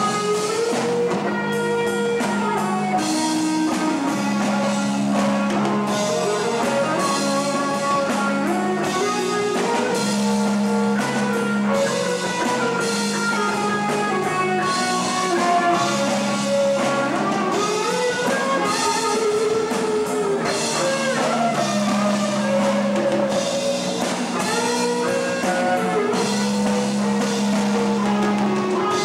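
Live rock band playing an instrumental passage: an electric guitar plays a lead line with bent, gliding notes over a repeating chord backing and drums.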